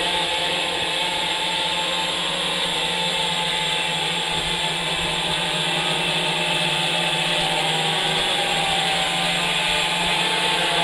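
A large quadcopter's four 1000 kV brushless motors spinning 14-inch carbon-fibre props, buzzing steadily in flight. A low hum runs under a high, airy whir.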